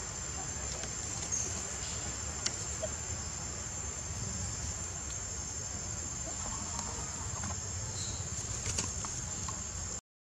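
Steady, high-pitched drone of insects in the forest, with a low rumble underneath and a few faint clicks; it cuts out briefly near the end.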